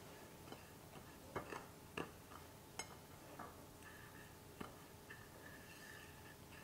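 Faint, scattered light clicks and taps of fingertips and nails against a ceramic plate as shredded coconut is pressed onto a salmon fillet, about seven in all, irregularly spaced, over near silence.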